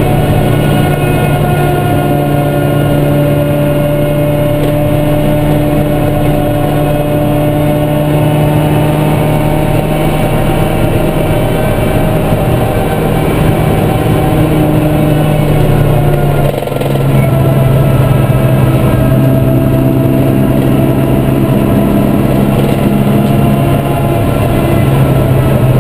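A supercharged Toyota 4A-GZE 1.6-litre four-cylinder in a race Corolla, heard from inside the cabin, running hard at steady high revs. There is one brief break in the engine note about two-thirds of the way through, after which it runs on at a slightly lower pitch.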